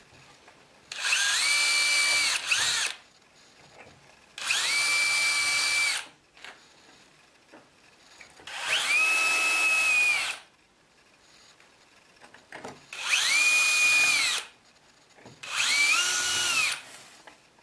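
Cordless drill boring holes into a plastic sanding block. It makes five short runs, each spinning up to a steady high whine and winding down, with brief pauses between them.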